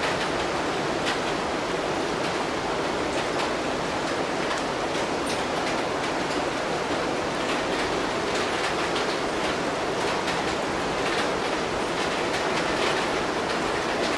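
Steady rain falling on forest foliage, a constant even hiss with faint scattered drip ticks.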